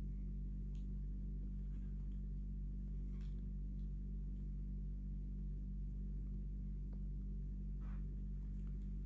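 A steady low hum, with a few faint, brief noises about one, three and eight seconds in.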